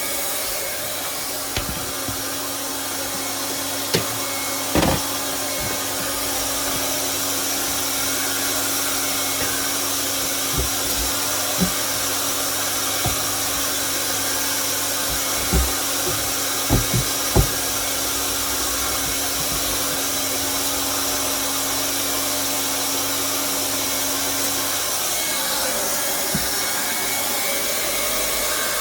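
Hot-air plastic welding gun blowing steadily, a constant hiss with a hum, while a weld is run along the outside of the shower box. There are a few scattered knocks and clicks of handling, and one steady tone in the hum drops out near the end.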